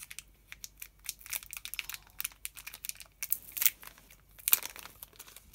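Small clear plastic bag crinkling in the fingers as it is opened: a run of irregular sharp crackles, loudest about three and a half and four and a half seconds in.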